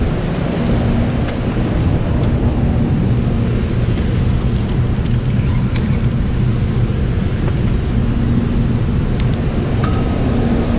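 Steady low rumble of water rushing out below a dam, with a faint low hum running under it.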